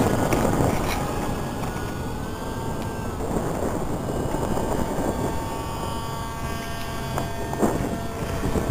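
Brushless electric motor and propeller of a foam RC plane whining in flight, a thin tone that shifts lower in pitch a few times, over wind rumbling on the microphone.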